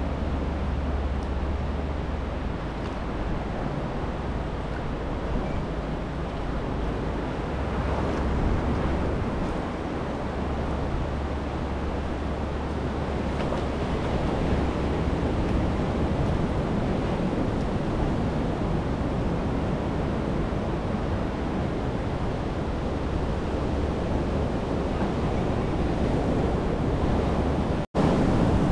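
Wind rumbling on the microphone over the steady wash of small waves on a shallow beach, with a brief dropout near the end.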